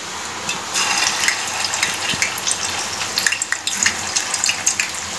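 Vegetable Manchurian balls deep-frying in hot oil in a kadhai on high flame: a sizzle with dense crackling pops, starting under a second in as the balls go into the oil.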